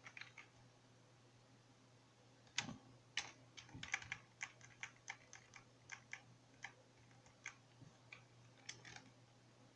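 Computer keyboard keys being typed, faint irregular clicks a few per second, starting about two and a half seconds in and stopping shortly before the end, over a faint steady low hum.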